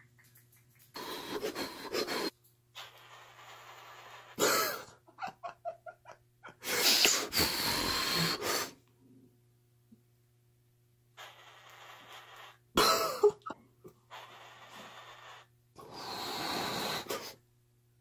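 Two cockatiels hissing at each other in an aggressive standoff: repeated bursts of breathy hiss about a second or two each, with a couple of short harsh squawks among them.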